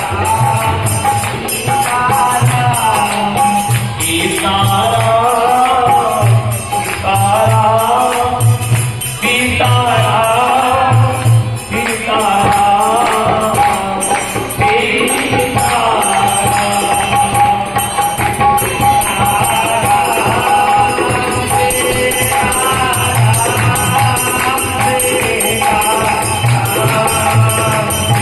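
Devotional kirtan music: a harmonium melody over a steady beat of jingling hand percussion and low drum strokes.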